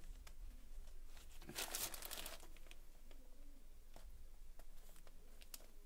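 Plastic courier bag crinkling and crackling as it is handled and worked open by hand, with a louder stretch of crackling about one and a half seconds in.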